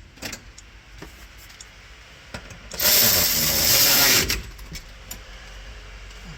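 A power tool runs in one loud burst of about a second and a half near the middle, its speed wavering, with light clicks and knocks of work around it.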